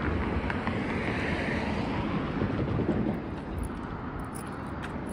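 Steady wind noise on the microphone over a low outdoor rumble, easing slightly after about three seconds.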